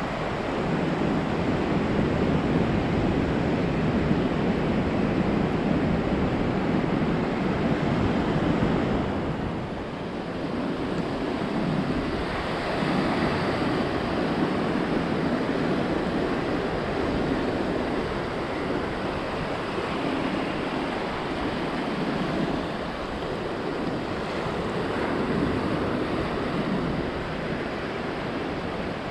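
Ocean surf washing onto a beach: a steady rush of breaking waves that swells and eases over several seconds.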